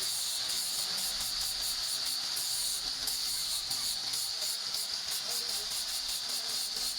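A steady, loud hiss of a gas jet, starting abruptly just before and holding level throughout, with a fast flutter in its highest part.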